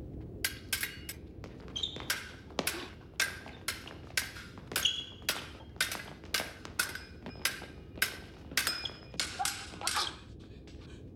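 Fencing foils clashing blade on blade in quick exchanges, about two strikes a second, each a sharp click with a short metallic ring.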